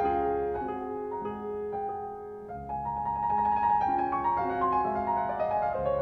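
Piano music, with a quieter stretch about two seconds in and then a busier run of higher notes.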